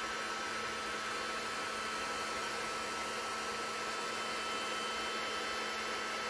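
Handheld electric heat gun running steadily, a constant rush of blown air with a low hum and a thin steady whine. It is held on the taped edge of a cured epoxy piece to soften the tape.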